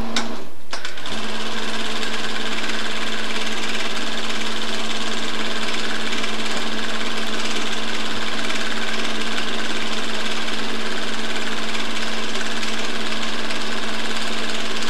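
Film projector running: a steady mechanical whir and clatter with a constant hum, which drops out for a moment about a second in.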